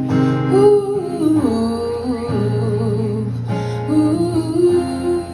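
Live acoustic song between verses: a voice sings a gliding melody without words over sustained guitar chords.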